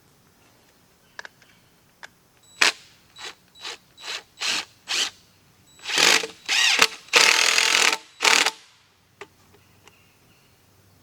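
A hand-worked mechanism ratcheting in a run of short strokes about two a second, then three or four longer strokes, the loudest near the end.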